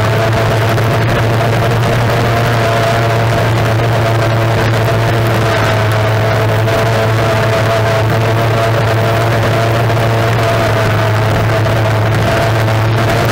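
Racing outboard engine of a tunnel powerboat, heard from the onboard camera, running at a steady, unchanging pitch with a constant low drone.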